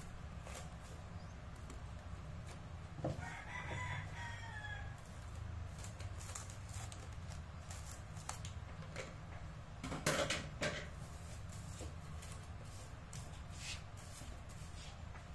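Plastic cling film rustling and crinkling as it is pulled over a glass bowl and cut from the roll with scissors, with the loudest crinkle about ten seconds in. About three seconds in, a drawn-out animal call lasting about two seconds sounds in the background.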